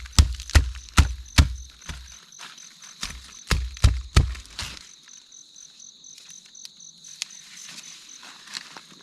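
A quick run of dull thuds, about two and a half a second, in two bursts in the first half, over steady high-pitched insect chirring that carries on alone afterwards.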